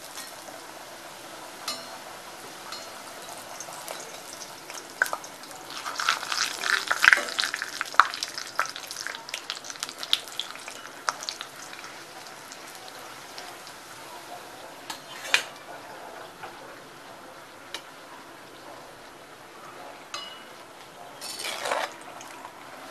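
Bhatura deep-frying in hot oil in a cast-iron kadhai, a steady sizzle that turns into a louder crackle between about six and ten seconds in as the puffing bread is pressed with a slotted spoon. A few sharp knocks of the spoon against the pan come later.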